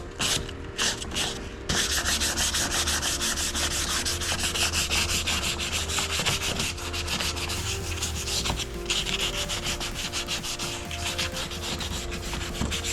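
Folded sandpaper rubbed by hand over a car door handle, scuffing the rough, faded surface smooth before painting. The strokes start sparse and pick up to a fast, steady back-and-forth rhythm about two seconds in.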